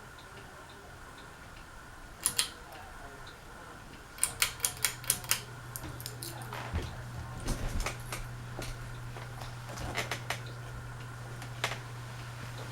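Westinghouse Apollo Elite ceiling fan being switched on. Two clicks come about two seconds in, then a quick run of clicks about four seconds in, as a steady low hum from the fan starts and holds. Scattered light knocks follow.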